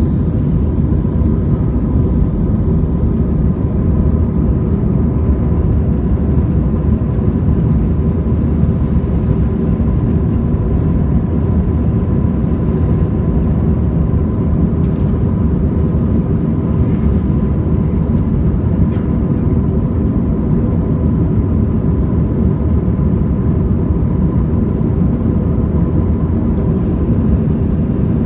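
Jet airliner engines and airflow heard from inside the passenger cabin: a steady, loud low rumble with a faint steady whine above it, consistent with the takeoff run or climb-out.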